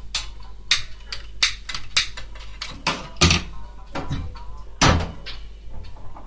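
Sharp clicks at about three a second, with two heavier metallic knocks about three and five seconds in, from a stainless-steel Turkish double teapot being handled on a gas stove.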